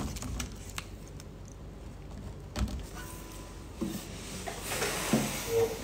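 Soft handling noise from an acoustic guitar held before playing: a few light knocks and a short rustle, with no strumming yet.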